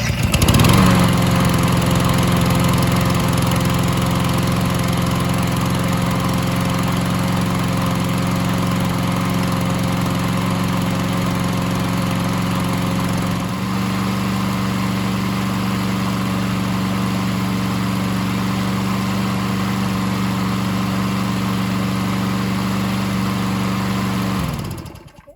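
Troy-Bilt lawn mower's single-cylinder engine catching on the electric starter and running steadily while it warms up. Its pitch shifts slightly about halfway through. Near the end it shuts off and winds down within about a second.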